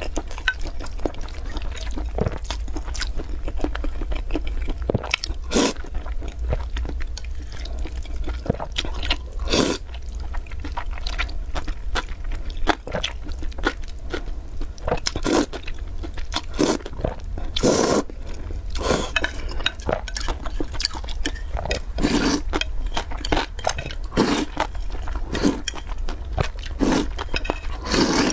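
Close-up eating sounds: noodles in broth being slurped and chewed, with wet mouth sounds and a dozen or so louder slurps spread through, over a steady low hum.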